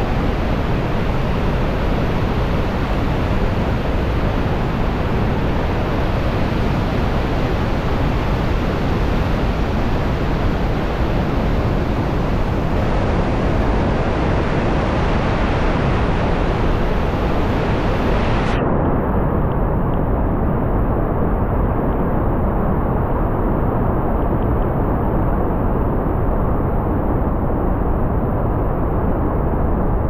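Loud, steady rush of the Iguazu Falls at the Devil's Throat, with floodwater pouring over the falls and churning below. About two-thirds of the way through, the sound turns suddenly duller, losing its hiss.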